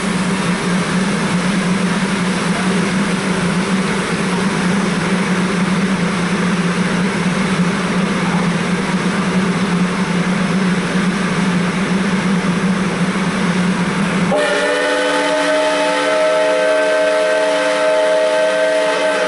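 Passenger cars rolling past on the rails with a steady rumble, then about 14 seconds in the steam locomotive's whistle begins one long, held chord.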